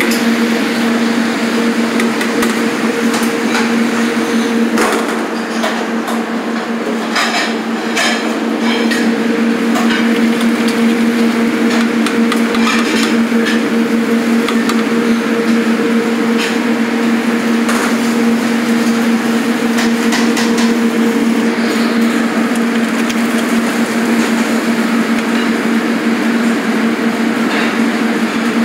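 A steady mechanical hum, over which come scattered metal knocks and clatter, thickest about seven to nine seconds in. These are cans of beans being emptied into a large aluminium stockpot of boiling soup and the pot being worked.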